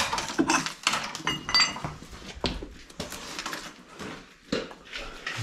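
Clattering and knocking of metal kitchen debris being disturbed, with one object ringing briefly about a second and a half in and a sharper knock about halfway.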